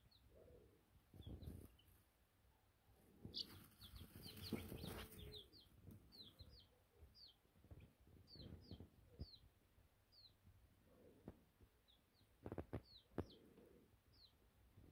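Baby chicks peeping softly: short, high chirps that each fall in pitch, scattered irregularly throughout. There is some rustling about four seconds in and soft thumps near the end.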